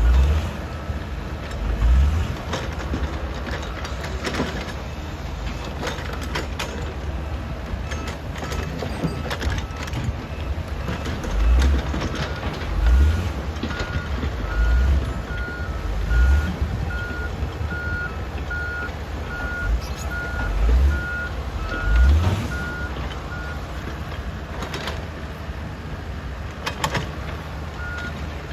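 Heavy diesel machinery working: an excavator and a truck, their engines rumbling with repeated low surges as they take load, along with scattered knocks and clanks. A reversing alarm beeps about twice a second through the middle stretch and again near the end.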